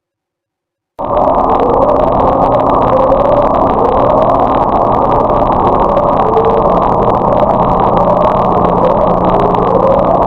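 Ocean sound recording: a loud, steady rumbling noise starting about a second in, with a short rising tone repeating about every second and a half.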